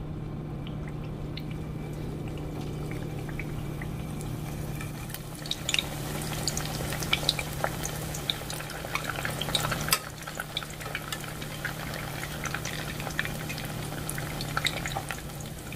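Stuffed red-chile masa enchiladas potosinas frying in hot vegetable oil: a steady bubbling that breaks into frequent sharp pops and crackles from about five seconds in. A steady low hum runs underneath.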